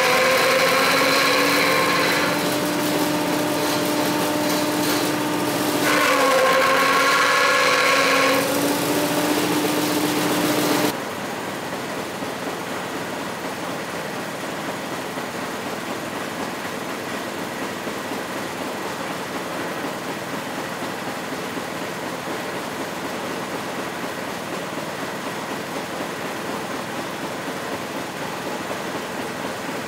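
Abaca decorticating machine running while a stalk is drawn through it, its running pitch dropping about two seconds in, rising again near six seconds and dropping once more. From about eleven seconds a second fibre-stripping machine gives a steadier, quieter running noise with no clear tone.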